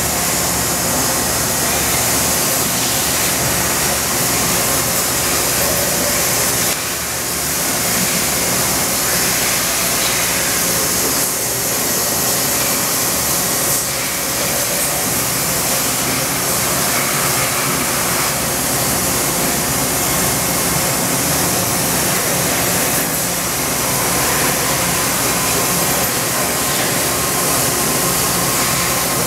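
2004 OKK HM100S horizontal machining center milling a metal part, with a steady, loud hiss of coolant spray and cutting over the running machine.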